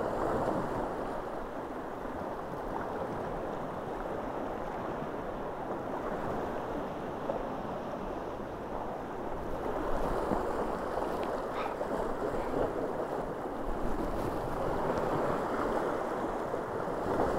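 Sea surf washing and breaking over shoreline rocks, a steady rushing noise, with wind buffeting the microphone.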